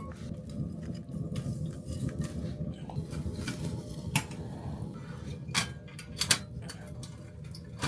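Dishes and cutlery clinking during a meal: a few sharp separate clinks, two of them close together, over a low steady rumble.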